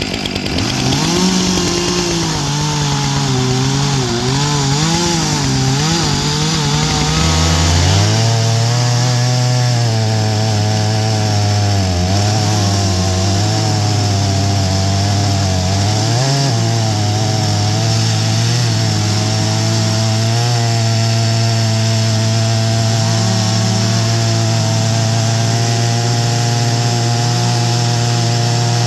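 Stihl MS661 chainsaw (91 cc two-stroke) running at high revs, milling pine with a 36-inch bar and full chisel chain on an Alaskan mill. The pitch wavers for the first several seconds. About seven seconds in it drops to a lower, steadier note and holds it.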